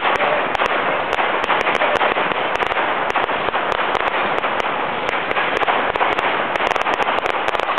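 Fireworks crackling and popping in a dense, unbroken run of sharp overlapping cracks.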